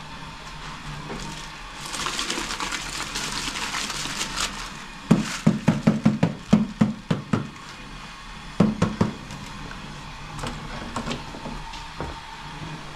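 A plastic colander knocked against the rim of a large aluminium cooking pot: a quick run of about ten knocks, then a few more a couple of seconds later. Before the knocks comes a stretch of hissing.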